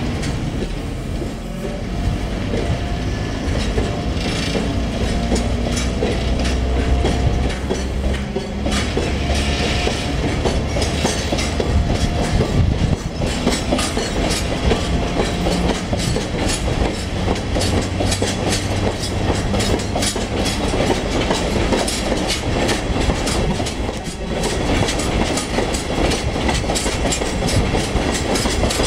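Chichibu Railway Deki 100-class electric locomotive hauling a freight train of hopper wagons away from the station. It starts as a low rumble with a faint, slowly rising motor whine, and after about twelve seconds it gives way to a steady clickety-clack of the wagon wheels over rail joints as the wagons pass.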